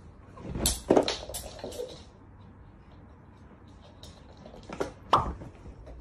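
A few sharp knocks and bumps in a small room: a quick cluster about a second in, then two more near the end, the last the loudest, in the manner of a wooden door being knocked or moved.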